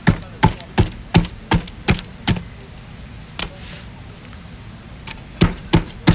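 Cleaver chopping on a wooden cutting board, scoring a whole fish: a quick run of sharp knocks, about three a second, then one lone knock and a short pause before another quick run near the end.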